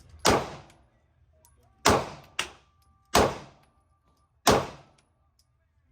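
Five gunshots fired one at a time at uneven intervals, the second and third close together, each a sharp crack with a short echoing tail.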